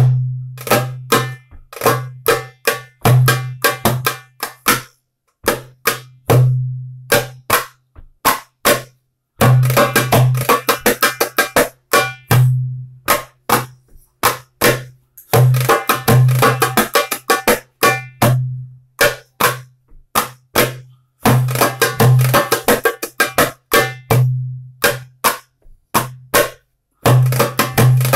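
Metal-bodied darbuka (goblet drum) played by hand in a loose solo: deep ringing bass strokes alternate with sharp, crisp edge strokes, broken by several stretches of fast rolls.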